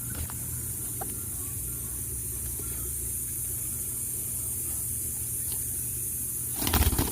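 Steady high hiss of water spraying from a garden hose, with a low hum beneath it. A brief loud burst of noise comes about a second before the end.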